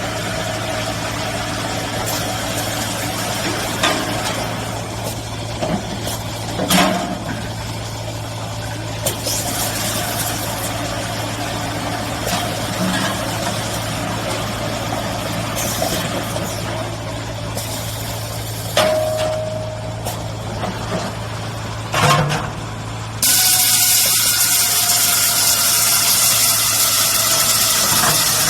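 Washing machine for 5-gallon water bottles running with a steady motor hum and occasional clanks. About 23 s in, a loud steady hiss starts and continues to the end.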